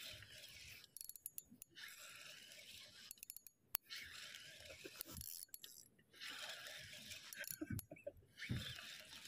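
Kenko SW2000 spinning reel being cranked in spurts with short pauses, its gears whirring as a hooked fish is reeled in on a bent jigging rod.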